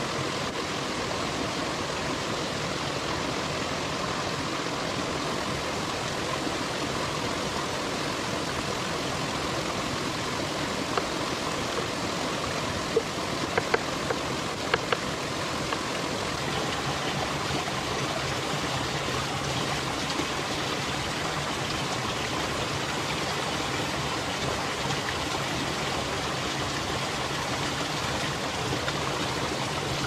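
Steady rush of a small waterfall trickling down a rock face into a shallow stream. Between about a third and halfway through come a few sharp knocks of a cleaver chopping on a wooden cutting board.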